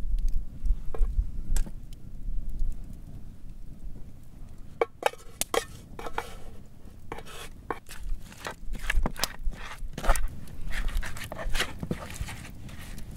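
A wooden spoon knocking and scraping as sauce is scraped out of a metal pot onto raw pork chunks in a wooden bowl, then stirring the meat. From about five seconds in come many short clicks and knocks; before that a low rumble is heard.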